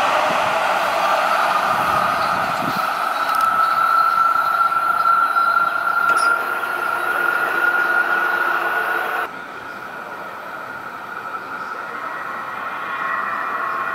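LA Metro light rail train running along the track, with a steady high whine over the rolling rumble that rises slightly in pitch. About nine seconds in, the sound cuts to a quieter scene where a fainter whine carries on.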